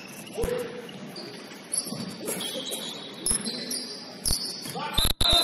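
Basketball sneakers squeaking on a hardwood gym floor in short high chirps, with a few thuds of a bouncing basketball and a quick run of bounces near the end.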